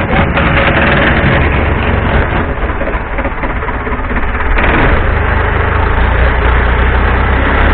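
Long-tail boat's engine running steadily under way, with rushing water and wind noise; it gets louder a little past halfway.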